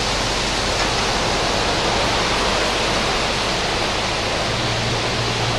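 Steady rushing noise of harvested cranberries pouring out of a truck into the processing plant, with a low machine hum coming in near the end.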